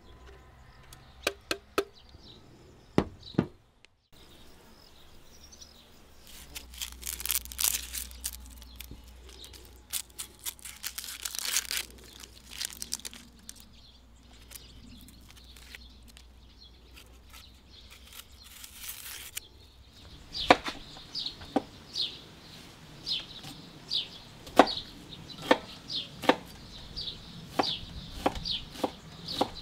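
A few rasping strokes of tomatoes grated on a metal box grater. Then the scraping of a knife peeling a red onion. From about two-thirds of the way in, a chef's knife chops the onion on a wooden cutting board with steady sharp strikes, about two a second.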